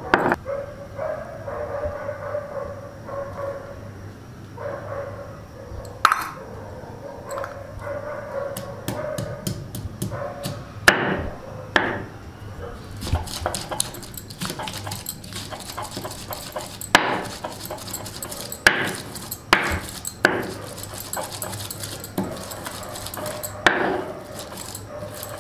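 Hand-held grinding stone rubbing and knocking on a flat stone slab (a Nepali silauto-lohoro), crushing dried chilli, cloves and cardamom into paste and then ginger and garlic. A rough scraping runs under sharp stone-on-stone knocks that come every second or few seconds.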